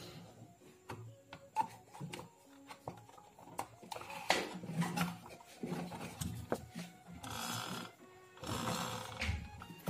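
Hard plastic toy backhoe loader handled and turned over on a table: scattered clicks and knocks of plastic, with a whirring, machine-like sound at times, over background music.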